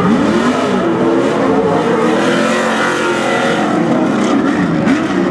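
Off-road racing truck engine revving hard, its pitch rising and falling again and again as the throttle is worked around the dirt track.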